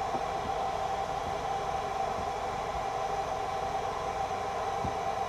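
Forge running: a steady rushing hiss with a constant hum.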